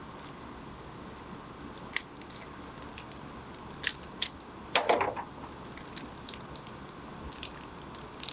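Small handling sounds of tools and parts on a workbench: scattered light clicks and taps, with a brief crinkly rustle about five seconds in.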